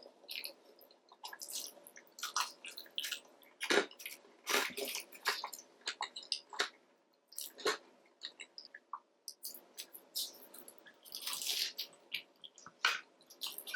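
Close-miked eating sounds of seafood: irregular wet smacks, squishes and clicks of chewing.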